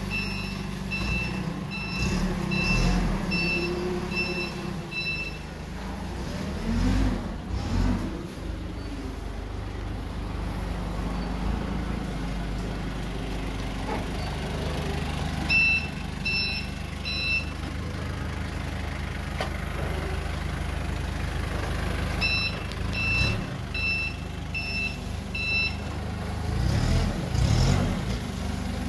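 Forklift engine running while its reversing alarm beeps in three runs: about seven beeps at the start, three more about halfway through, and about six near the end. The engine revs up briefly twice as the truck manoeuvres.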